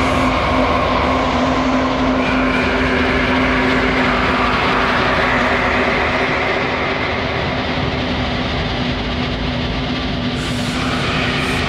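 Raw black metal: a dense, unbroken wall of distorted sound with one low note held steadily beneath it.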